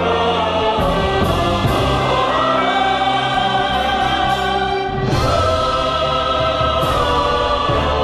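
Choral music: a mixed choir singing held chords over instrumental accompaniment, with bright crashes about a second in and again around five and seven seconds in.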